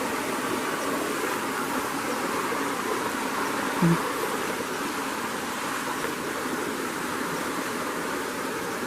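Steady riverside ambience: an even hiss with no clear pattern, broken by one short, low pitched sound about four seconds in.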